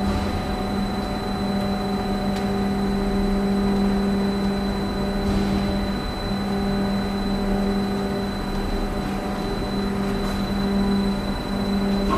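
PUDA valve-bag vacuum packing machine for zinc oxide running with a steady mechanical hum and a thin high whine. The hum dips briefly about six seconds in and again near the end.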